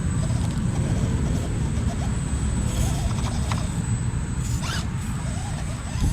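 Axial SCX24 micro RC crawler working over rocks: a thin, steady high whine from its small electric drivetrain, with scattered scratchy clicks and scrapes of the tyres and chassis on stone, over a steady low rumble.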